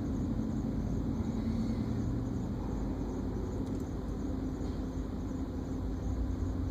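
A car's steady low running hum, engine and road noise with no sudden changes.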